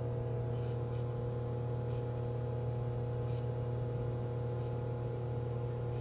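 Over-the-range microwave oven running with a mug inside: a steady low electrical hum, with fainter higher tones held above it.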